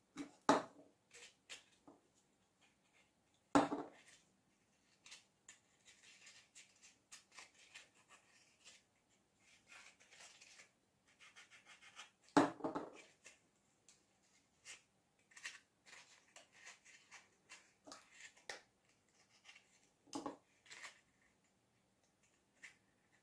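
Faint handling sounds of hands working EVA foam petals and a small glue tube: scattered light taps, rubs and rustles, with a few louder knocks against the table.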